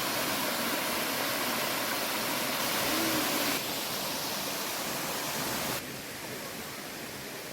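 Mountain stream water rushing over rocks, a steady, even noise that drops to a lower level about six seconds in.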